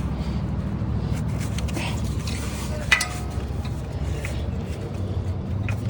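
Small clicks and rattles of hands unclipping the wiring connectors from a car alternator, with one sharp metallic clink about three seconds in, over a steady low hum.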